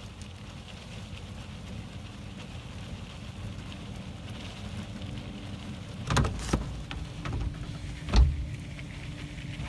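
Steady rushing hiss of loose-fill insulation being blown through a large corrugated hose and pattering onto the attic floor. A few sharp knocks come a little past the middle, the loudest near the end.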